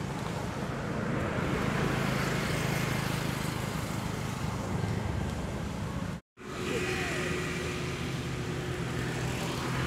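Steady rumbling, hissing outdoor background noise that cuts out completely for a moment about six seconds in.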